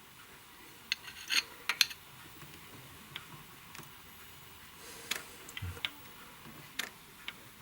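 Scattered light metallic clicks and taps from a wrench working on the valve gear of an open cylinder head, with one dull knock. The valve is being levered open to measure its clearance with a dial indicator, the engine off.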